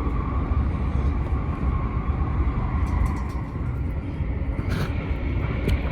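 Cabin running noise of a Keisei Skyliner train at speed: a steady low rumble of wheels on rail with a faint steady tone above it, and a couple of short clicks near the end.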